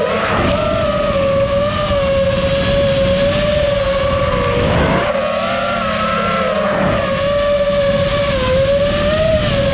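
FPV racing drone's motors and propellers whining in flight over a steady rush of air, the pitch wavering up and down as the throttle changes.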